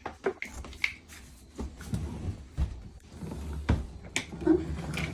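Irregular clicks and knocks of the plastic parts of a Ridgid 14-gallon wet/dry shop vacuum being handled and fitted together during assembly.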